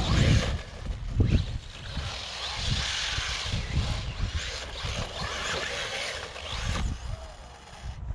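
Wind buffeting the microphone over the rising and falling whine of a Traxxas Slash 4x4 RC truck's Hobbywing 3660 brushless electric motor as it is driven across grass and gravel.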